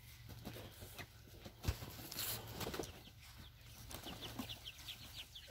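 Faint peeping of young chickens: short falling chirps that come thicker in the last second or so, with a few soft knocks and rustles.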